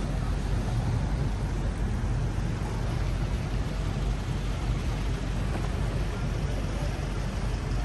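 Steady city street noise: an even, unbroken rumble of traffic, heaviest in the deep low end, with no single event standing out.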